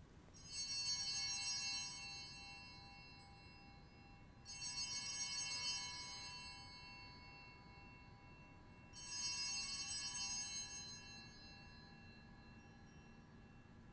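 Altar bells rung three times, about four seconds apart. Each ring is a bright cluster of high tones that fades out over a couple of seconds. They mark the elevation of the consecrated host at Mass.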